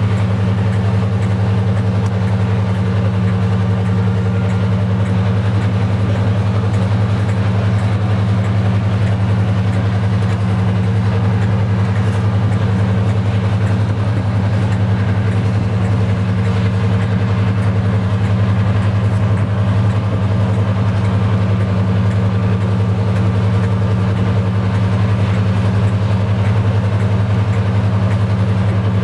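Heavy diesel locomotive engine running steadily at low revs, a deep, even drone that does not change in pitch or loudness.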